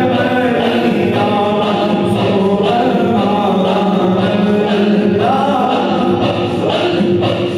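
A group of men singing a naat together, the Urdu devotional praise of the Prophet, in several overlapping voices without a break.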